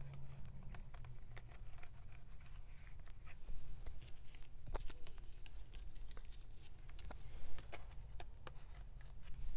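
Light, scattered rustles and soft taps of paper cut-outs and clear plastic page pockets being handled and pressed flat, over a low steady hum.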